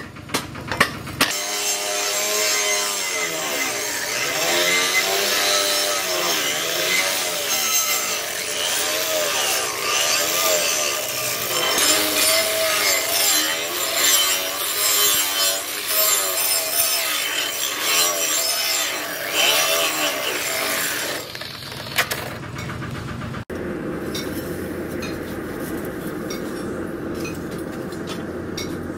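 Handheld angle grinder spinning up about a second in and grinding the face of a steel cleaver blade cut from a tractor disc, its motor pitch wavering as it bites and eases off. It stops about twenty seconds in, and a quieter, steady noise follows after a cut.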